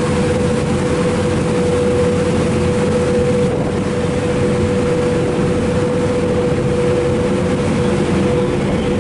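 The car ferry Queenscliff's engines run in a steady low drone with a constant whine as it manoeuvres into its berth, its propellers churning the water.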